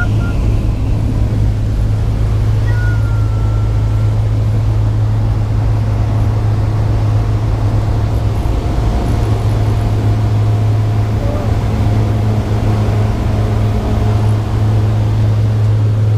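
Cessna 208 Caravan amphibian's Pratt & Whitney PT6A turboprop and propeller at takeoff power, heard inside the cabin as a loud, steady low drone. Over it is the rush of water spray off the floats during the takeoff run.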